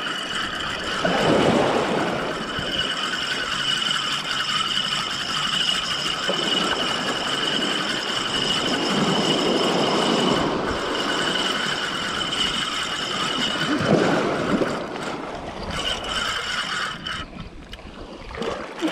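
Spinning fishing reel being cranked, its gears whirring in a steady whine that pauses briefly a few times and stops near the end, as a hooked fish is wound in. Surf washes in and out underneath.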